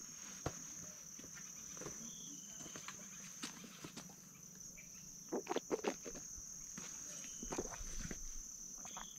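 Steady high-pitched insect chirring. A few small clicks and knocks come through it, with a brief cluster of them about five and a half seconds in.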